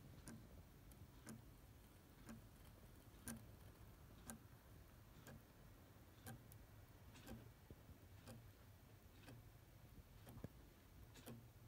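Small stepper motor of a 3D-printed Arduino clock, driven by an L293D chip, stepping once a second: a faint click about every second as it moves the printed gears and hand.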